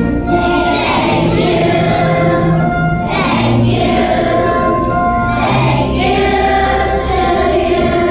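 A choir of young schoolchildren singing a patriotic song together over instrumental accompaniment.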